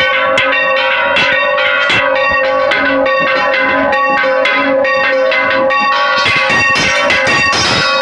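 Large church bell swung on its wooden headstock, its clapper striking about twice a second. The strikes overlap into loud, continuous ringing, heard close up inside the belfry.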